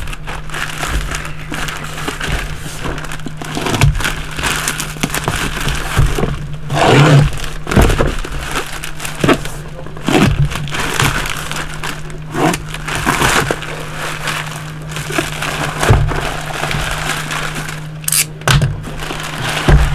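Plastic courier mailer being cut open and torn, with irregular rustling, crinkling and knocks of plastic and bubble wrap as a boxed item is pulled out, over background music.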